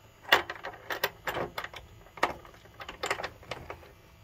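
Irregular small clicks and knocks of a new cartridge fuse being pushed and snapped into place by hand among the copper cable lugs of a boat's electrical panel.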